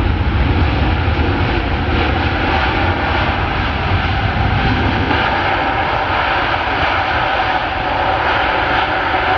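Jet airliner engines running loud and steady: a rumble with a steady whine over it, the deep part of the rumble easing off about halfway through.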